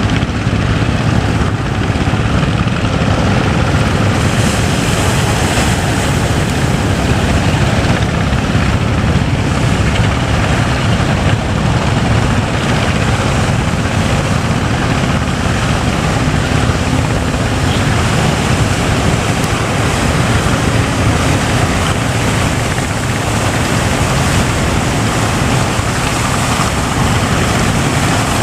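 Boat engine running steadily, mixed with a loud rush of wind and sea.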